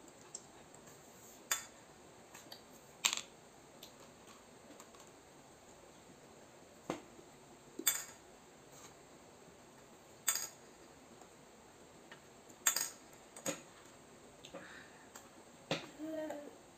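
Small candy-coated chocolates clinking one at a time onto a ceramic plate as they are dropped from a straw: short, sharp clicks every second or few, irregularly spaced, about eight in all.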